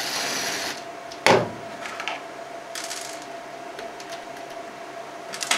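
Cordless DeWalt driver whirring briefly as it backs out a screw, stopping under a second in. About a second later comes a loud knock, as of the driver being set down on the table, then a few light clicks of handling, over a steady faint hum.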